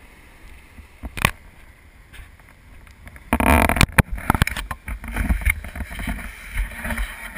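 Knocks and rubbing from a small action camera being handled, then a loud rushing burst about three seconds in, followed by surf washing up the shore.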